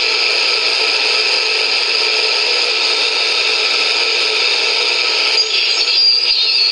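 Shortwave radio static: a steady rushing hiss from the HP 8920A service monitor's receiver speaker, with no signal readable. About five seconds in the noise changes and faint wavering tones begin to come through.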